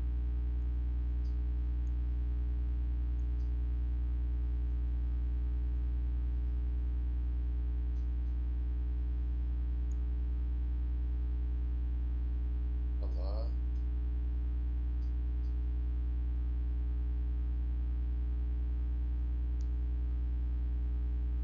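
Steady low electrical mains hum on the recording, with a few faint mouse clicks now and then and a brief voice sound about halfway through.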